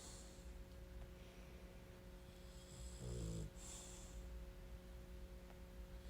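A dog snoring faintly: one low snore about halfway through, with a breathy hiss just before and after it.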